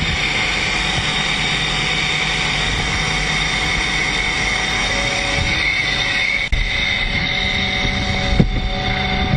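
Steady whining rush of airfield machinery running on a jet flight line. A single sharp knock about six and a half seconds in, as the MiG-29's cockpit canopy comes down and shuts.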